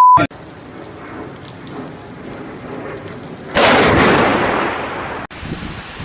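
A brief beep ends right at the start, then steady rain. About three and a half seconds in a sudden loud thunderclap from a lightning strike breaks out and fades over a second or two before the sound cuts off.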